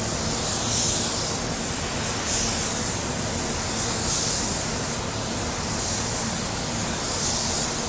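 Gravity-feed paint spray gun hissing as it sprays a blend coat of silver metallic basecoat, the air hiss swelling and easing slightly with each pass.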